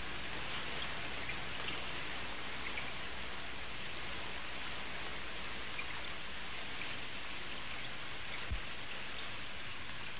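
Steady rain falling, an even hiss of many drops, with one brief low thump about eight and a half seconds in.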